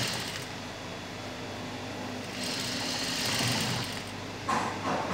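Sewing machine running steadily as it stitches a seam through cotton fabric, with a louder rustling hiss about halfway through as the cloth is handled.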